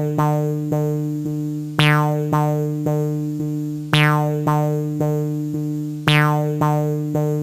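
Background music: a synthesizer or electric keyboard playing a repeating pattern of short struck notes, about two a second, over a steady low note, with a stronger accent every two seconds.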